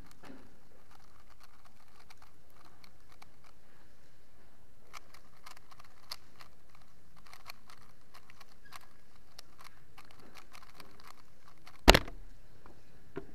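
Plastic 3x3 speedcube being turned quickly by hand, a stream of light rapid clicks, ending about twelve seconds in with one loud sharp slap as the cube is set down and the hands hit the Speed Stacks timer to stop it.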